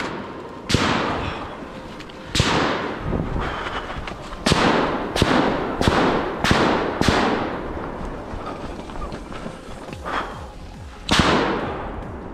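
Rifle shots, about nine at irregular intervals with one fainter in the later part, each followed by a long echoing decay through the woods, fired at steel targets.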